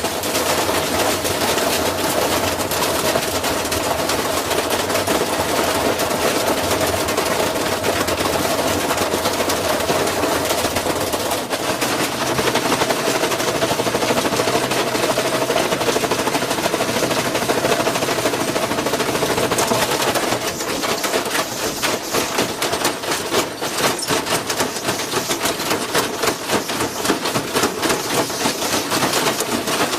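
Washing machine in a fast spin, its motor running with a steady whine under rapid, continuous rattling and knocking, like a machine shaking hard off balance. About two-thirds of the way in, the knocking turns more uneven and pulsing.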